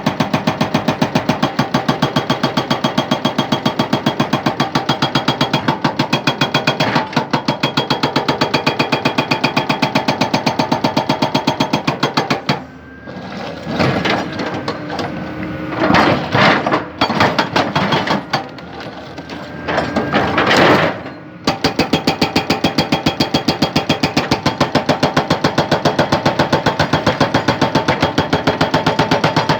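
Excavator-mounted hydraulic breaker hammering rock in rapid, even blows. It stops for about nine seconds in the middle, where irregular, louder noises take over, then starts hammering again.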